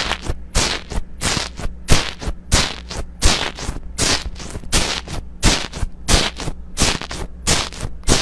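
Slime being squeezed and poked by hand, making sharp popping clicks about three times a second, over a steady low hum.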